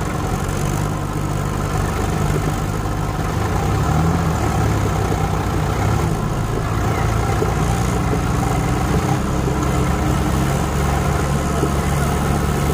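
Tractor engine running steadily at a low, even pitch.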